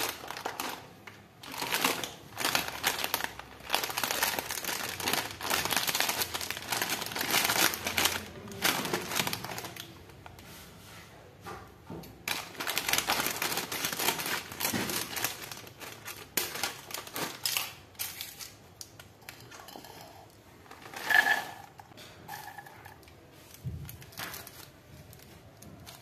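Foil-lined plastic snack packets crinkling and rustling as they are handled and cut open with scissors, with corn puffs poured out into a ceramic bowl. The crinkling comes in two long busy stretches, and a short louder rustle sounds about three quarters of the way through.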